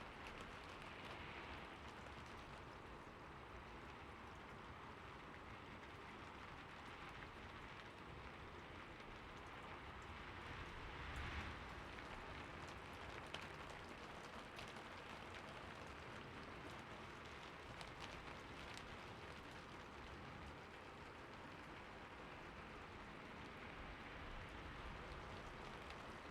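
Soft, steady city rain, an even hiss of falling rain with a brief swell a little under halfway through and a few faint ticks of drops.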